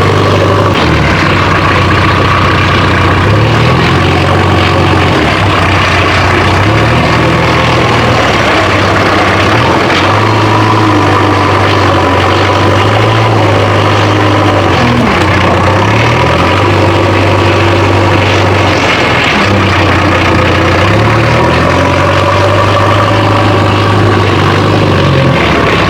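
Heavy vehicle engine running loudly, its pitch rising and falling every few seconds as it revs up and settles back.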